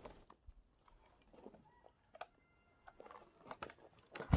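Quiet, scattered clicks and small knocks of a chainsaw being handled and readied for starting. A loud noise begins right at the end.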